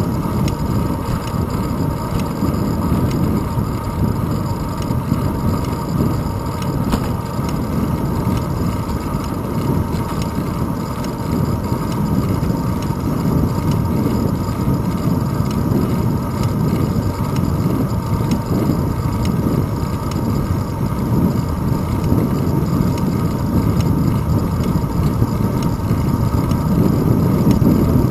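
Steady low rumble of wind on the microphone and road vibration from a bicycle rolling over asphalt, picked up by a handlebar-mounted GoPro Hero 2.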